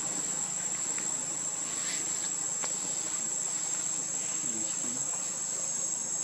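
Steady, high-pitched drone of insects, unbroken throughout, with a few faint clicks.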